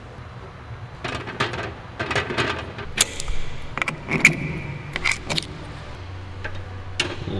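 Metal pressure-washer hose fittings clinking and rattling as they are handled and connected: a run of sharp clicks and jingles with a brief metallic ring partway through.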